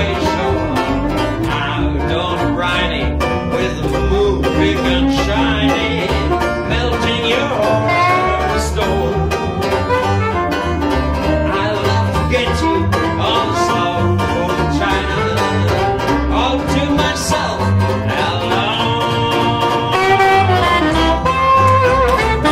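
Banjo solo of quick picked notes and strummed chords over a double bass plucking a steady line of low notes. Near the end a soprano saxophone comes in with long held, sliding notes.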